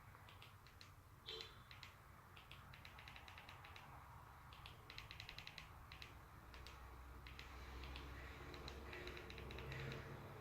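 Faint clicks of buttons being pressed, singly and in quick runs of several a second, as text is entered on a TV box, over a low steady hum.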